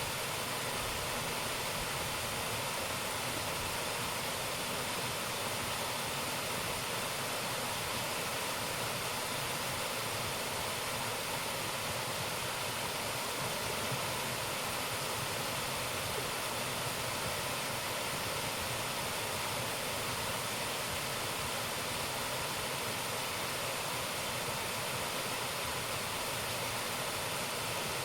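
A waterfall running: a steady, unbroken rush of falling water.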